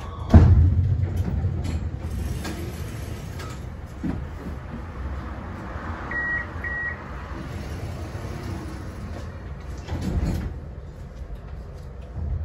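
Tram running along street track, heard from inside the cab: a steady low rumble, with a sharp knock about half a second in and lesser knocks near the 4 and 10 second marks. Two short high beeps sound near the middle.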